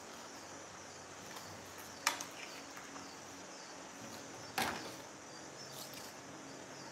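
Two light knocks of cardboard pieces being handled and set down on a tiled floor, the second, about two and a half seconds later, the louder, over a steady high-pitched background hiss.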